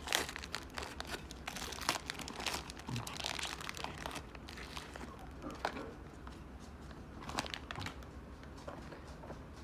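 Wrapper of a just-opened trading card pack crinkling and crackling as it is handled. The crinkling is busiest in the first few seconds, then comes in scattered crackles.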